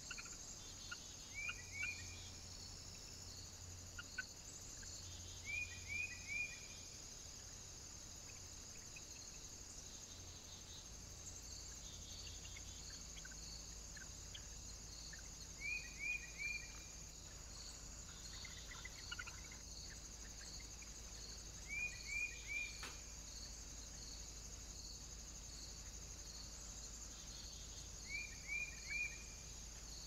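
Steady chirping of crickets and other insects, a high even trill with regularly repeated pulses. Over it, five times, a bird gives a short call of three quick descending chirps; these calls are the loudest sounds.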